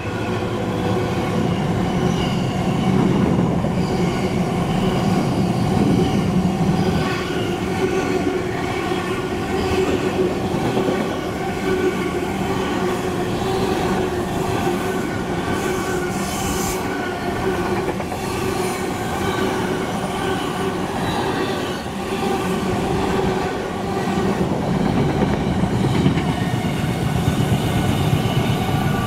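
Container freight train behind a Class 66 diesel running through at speed: a long, steady rumble of the container wagons' wheels on the rails. Several steady ringing tones sit above the rumble.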